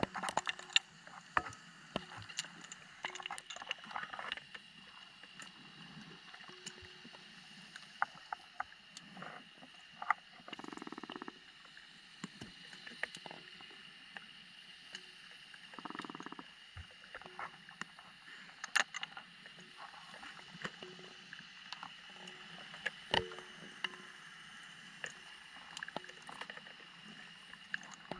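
Underwater sound picked up by a diver's camera: scattered sharp clicks and knocks over a steady hiss, with two short rushes of noise, one about ten seconds in and one about sixteen seconds in.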